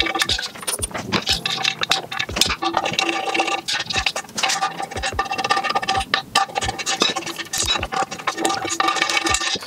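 Irregular clicking and rattling of a hand tool working the brake off a stunt scooter deck, over background music.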